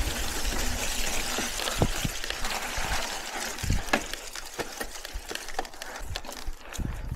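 Mountain bike rolling along a dirt trail: steady rushing wind and tyre noise with scattered knocks and rattles from the bike, the rushing easing off in the second half.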